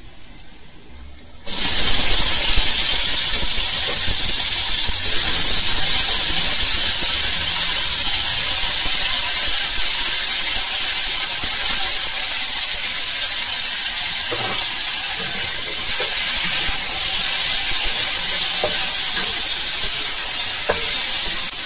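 Raw green banana and potato pieces dropped into hot oil in a kadai: a loud sizzle starts suddenly about a second and a half in and goes on steadily, easing a little. Near the end a metal spatula taps and scrapes as the pieces are stirred.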